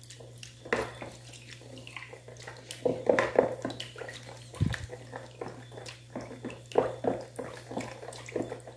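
A spoon stirring condensed milk and warm water in a bowl: irregular clinks and small liquid sloshes, over a steady low hum.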